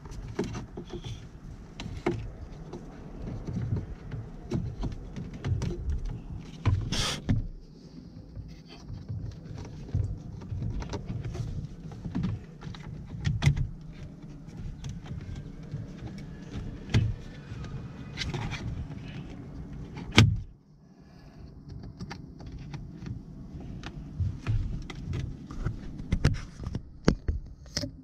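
Plastic dashboard trim and wiring being handled and pressed back into place: scattered clicks, knocks and rustles, with one loud sharp snap about twenty seconds in.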